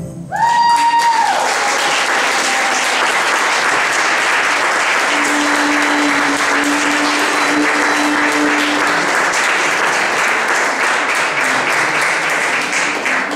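Audience applauding steadily after a live folk tune, with one short whistle about half a second in.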